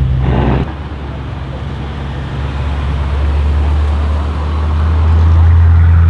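Exhaust of an ABT-tuned Audi RS6-R Avant C8's twin-turbo V8, its particulate filter deleted, running at low revs as the car drives slowly off, the steady low note growing louder toward the end. Under a second in, another car's exhaust note cuts off abruptly just before it.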